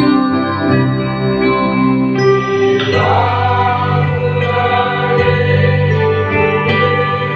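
A mixed choir of men and women singing together, accompanied by an electric bass guitar.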